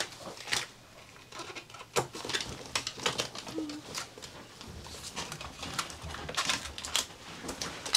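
Aluminum foil tape being torn, handled and pressed onto a foil-lined air-conditioner duct: irregular crinkling with light ticks and taps. A brief faint squeak comes about three and a half seconds in.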